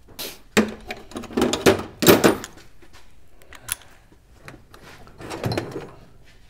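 Rummaging through tools on a shop bench: a scatter of knocks and clinks, closest together and loudest in the first two and a half seconds, with fainter clicks later.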